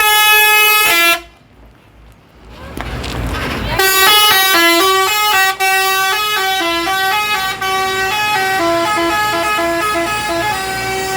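Telolet multi-tone musical air horn on a Prabu Nata Jaya bus: a loud burst of stepped notes that cuts off after about a second, then, after a short lull, a long run of quick changing notes playing a tune.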